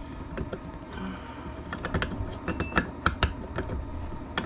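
Metal hand tools clinking and tapping against an ATV front differential housing as a tool is fitted to it: scattered sharp clicks, several close together between about two and three and a half seconds in.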